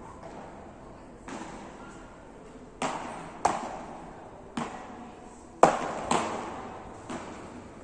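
Beach tennis paddles striking the ball in a rally: a string of sharp pocks, about seven of them, irregularly spaced, each ringing briefly in a large echoing hall; the loudest comes a little past halfway.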